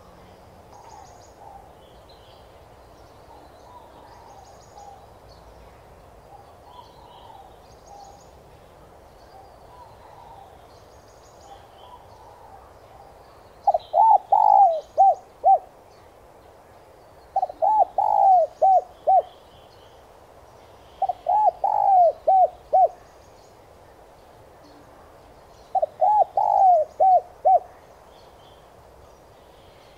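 Spotted dove cooing. Faint cooing for the first half gives way to four loud phrases of about five quick coos each, one every four seconds or so. Small birds chirp faintly throughout.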